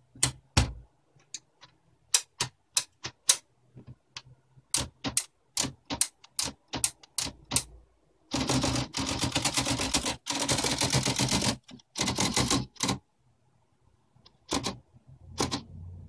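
UNIS tbm de luxe manual portable typewriter being typed on: single keystrokes striking one at a time, then about three seconds of fast, dense clatter, and a few more strokes near the end.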